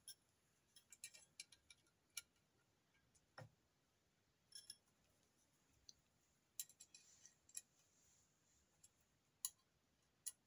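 Faint, scattered metallic clicks and ticks from screws and a hand tool on an aluminium crossbow stock being tightened and handled; otherwise near silence.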